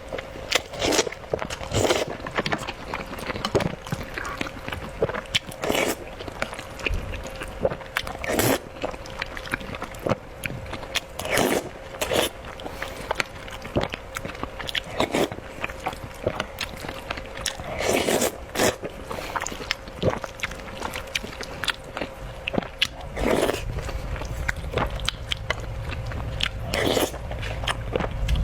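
Close-miked eating of soupy rice with tomato and fried egg: chewing and wet mouth sounds with small clicks, and a louder burst every few seconds. A low rumble comes in near the end.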